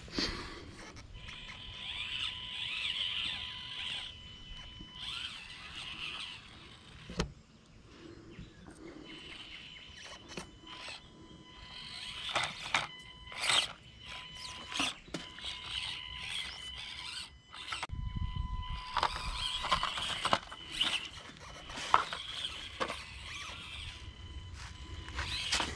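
Axial SCX24 1/24-scale RC crawler's small electric motor and gears whining in thin high tones that come and go as it is throttled, with frequent clicks and ticks from the tyres and chassis on rock. A low rumble comes in for the last several seconds.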